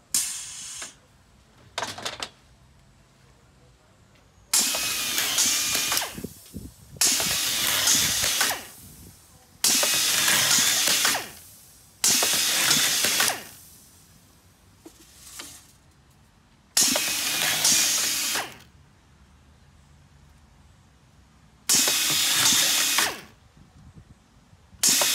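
URBAN BTS 2510 sash assembly station's automatic screwdriver unit driving screws into a PVC window sash profile, in repeated bursts of about a second and a half with short pauses between, each a loud whirring hiss.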